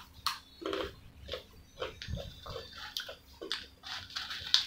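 Close-miked chewing of french fries: a run of short crunching mouth sounds, about three a second, with a sharper click near the end.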